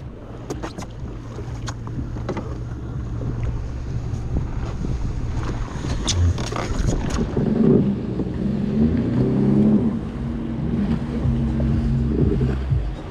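Motorboat engines rumbling and getting louder as the boat comes close, with a droning engine tone that wavers in pitch from about six seconds in. A few sharp knocks sound in the first second or two and again about six seconds in.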